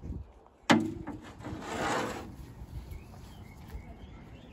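A sharp knock with a brief ring, then a scraping rub: a Land Rover Series 3's bonnet panel being lifted off its hinges and handled.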